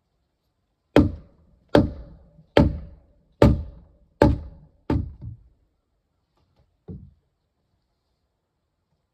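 Six heavy blows on timber, evenly spaced a little under a second apart, each followed by a short ring. A lighter knock comes about two seconds after the last.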